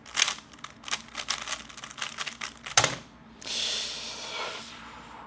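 3x3 Rubik's cube being turned fast during a timed speedsolve: a quick clatter of plastic clicks from the layer turns. About three seconds in, a single sharp knock, followed by a brief rushing hiss.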